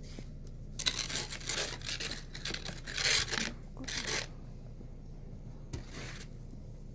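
Crunching and scraping in deep fresh snow, a run of about five crunches from about a second in to four seconds, then one more near six seconds, over a steady low hum.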